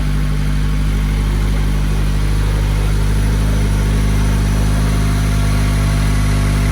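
Scion FR-S's 2.0-litre flat-four boxer engine idling steadily.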